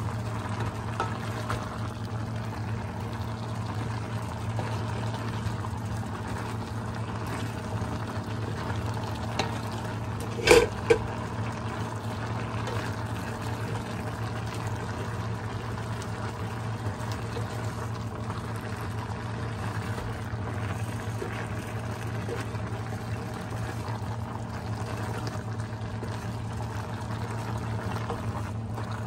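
Wooden spoon stirring chopped kamansi and pork belly through coconut milk in a metal pan, a wet, liquid stirring sound over a steady low hum. Two sharp knocks about ten seconds in.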